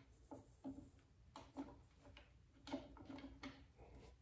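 Near silence with a few faint, scattered clicks and taps: the handlebar riser clamp screws being turned by hand.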